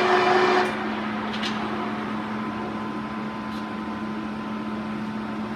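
Clausing Colchester engine lathe running: its louder tone cuts off abruptly under a second in, leaving a steady lower machine hum with a few faint clicks.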